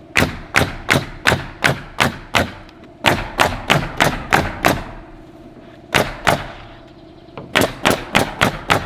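Nails being driven into roof sheathing in quick runs of sharp strikes, about three a second: a run of seven, another of seven, two more, then six near the end. A steady low hum runs underneath.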